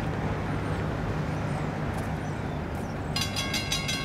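Steady low outdoor rumble of wind, then about three seconds in a railroad grade-crossing warning bell starts ringing in rapid pulses as the crossing gates activate for an approaching train.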